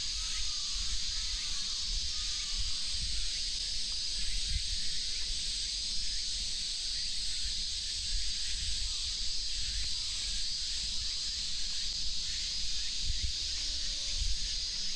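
A steady, high-pitched drone of summer cicadas, with an uneven low rumble underneath.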